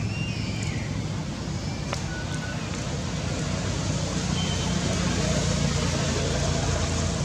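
Steady low rumble of outdoor background traffic noise, a little louder in the second half, with a few faint short high chirps.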